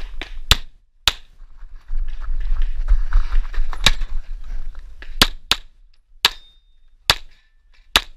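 Tanfoglio Stock II 9x19 pistol shots fired close to the microphone: two quick shots, a stretch of movement noise, then a single shot, a quick pair and more single shots. One shot is followed by a short ring of a struck steel target.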